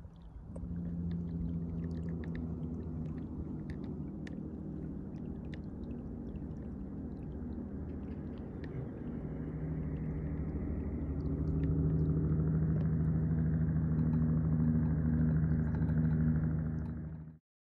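Small boat motor running with a steady low hum and a few faint clicks; it grows louder about twelve seconds in and cuts off abruptly just before the end.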